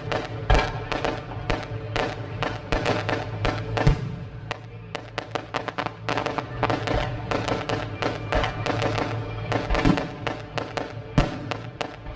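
Fireworks going off in a rapid string of bangs and crackles, several a second, over music with steady held notes.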